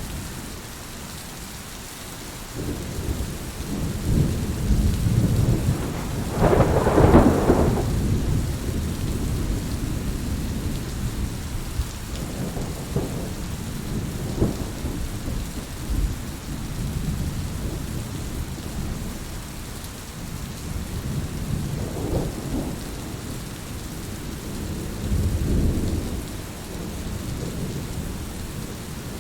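Steady rain with rolling thunder in a thunderstorm. The loudest peal comes about 7 s in, and weaker rumbles follow near 22 and 26 s.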